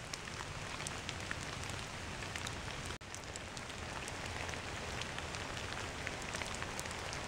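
Light drizzle falling on forest leaves and conifer needles: a steady hiss dotted with countless small droplet ticks, with a momentary break about three seconds in.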